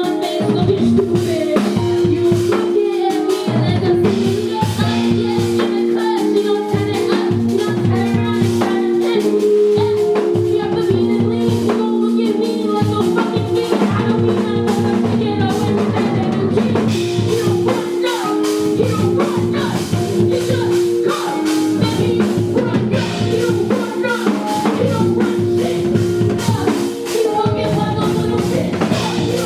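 Music: a song with a drum kit keeping a steady beat under held low instrumental notes.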